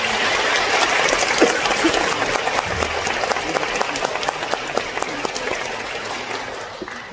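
Audience applauding: dense clapping that slowly dies away near the end.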